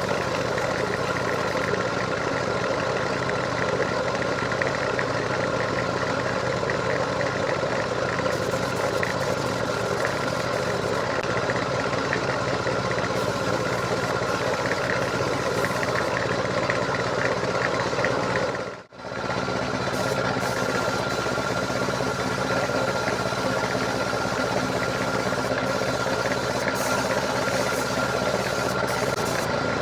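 A motor running steadily with a constant whine, cutting out for an instant about two-thirds of the way through and then carrying on unchanged.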